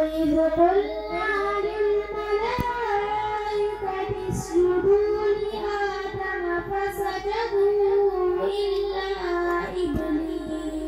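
A boy reciting Qur'an in the melodic tajweed style, drawing out long, ornamented notes that waver and glide in pitch.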